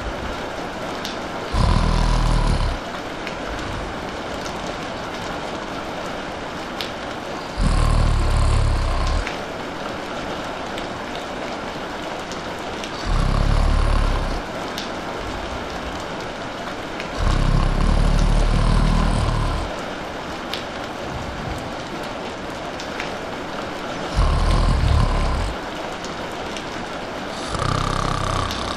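A person snoring: six low, rattling snores, about one every five to six seconds, louder than the steady hiss of rain falling throughout.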